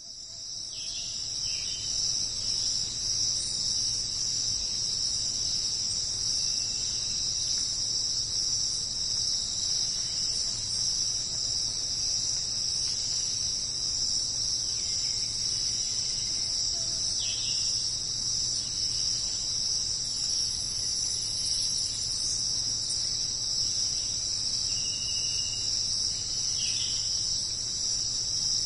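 Steady, high-pitched insect chorus, an unbroken shrill drone that fades in over the first couple of seconds, with a few faint short calls now and then.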